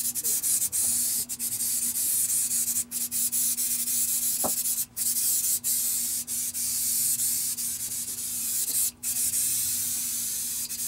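Aerosol spray adhesive hissing from the can in long bursts, cut off briefly about three times as the nozzle is let go, over a faint steady hum.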